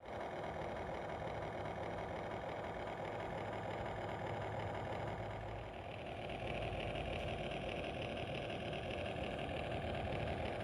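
Excavator engine and machinery running steadily, the tone changing about six seconds in.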